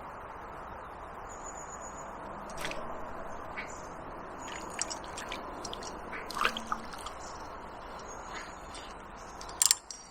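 Steady rush of river water with scattered drips and small splashes, and one sharp splash or knock near the end.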